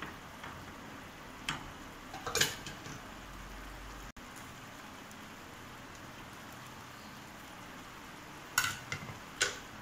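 A frying pan of sliced onions and capsicum in sauce sizzling steadily. A few short clatters of a utensil on the pan come twice in the first few seconds and twice near the end.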